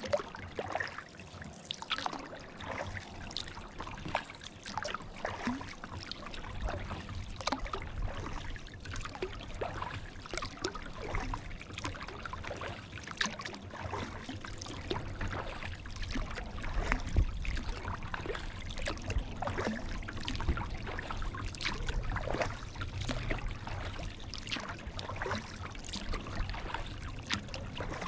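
Kayak paddling: water splashing and dripping off the paddle blades, many small irregular splashes and trickles, with a low rumble underneath from about six seconds in.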